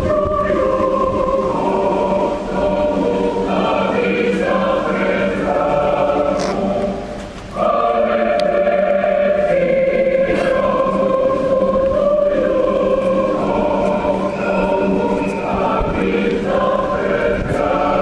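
Many voices singing a slow choral song together in long held notes, with a brief break between phrases about seven seconds in.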